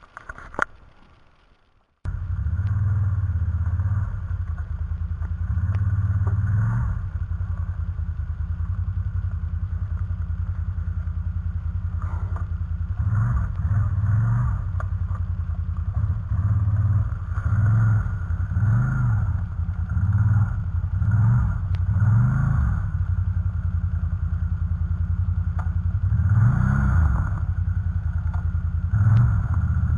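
Bombardier Outlander ATV engine running, with the throttle opened and eased off again and again in short surges. These surges come over and over through the second half.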